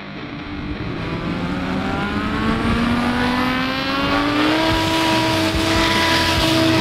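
Light bush plane's piston engine and propeller going to full power for a short takeoff roll. The engine note rises steadily for about four seconds, then holds at full power and grows louder as the plane comes closer.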